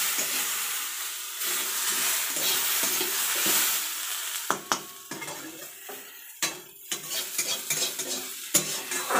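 Matchstick-cut potatoes sizzling in oil in a metal kadai while a spatula stirs and turns them. The sizzle is loudest in the first few seconds, then dies down, leaving sharp knocks and scrapes of the spatula against the pan.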